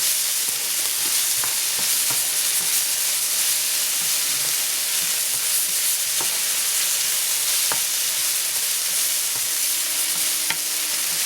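Ginger garlic paste frying in hot oil with browned onions and green chilies: a steady sizzle, with a spatula stirring the pan and a few brief clicks of it against the pan.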